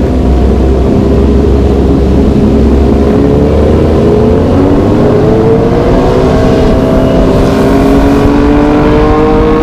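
Sport motorcycle engine with an aftermarket exhaust, its note climbing steadily in pitch as the bike accelerates, over low wind rumble on the microphone.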